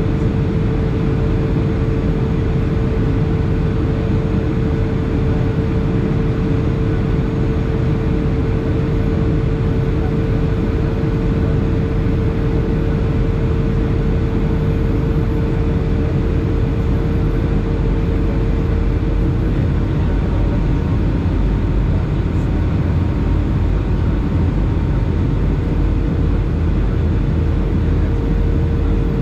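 Boeing 757 cabin noise in flight: the steady rush of jet engine and airflow heard at a window seat, with a constant mid-pitched engine tone that fades for a few seconds about two-thirds of the way through.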